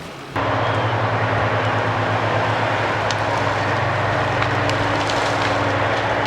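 A heavy engine of logging machinery running steadily at constant speed with a low hum, cutting in abruptly shortly after the start.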